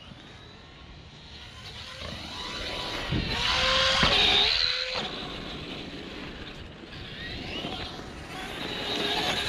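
Electric RC monster truck, a Traxxas Stampede 4x4, driving on dirt: motor and drivetrain whine rising and falling in pitch with the throttle. It is loudest as the truck passes close about four seconds in, and swells again near the end.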